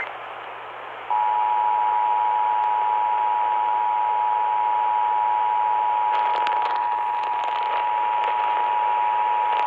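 Emergency Alert System two-tone attention signal (853 Hz and 960 Hz sounded together), starting about a second in and holding steady for about eight and a half seconds over constant radio hiss. The tone announces the spoken severe thunderstorm warning that follows.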